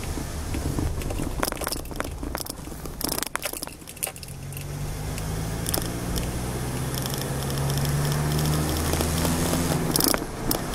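Car driving along a paved road, heard from inside the cabin: road and engine noise with scattered clicks and rattles. From about four seconds in, a low engine hum rises and holds steady as the car pulls along.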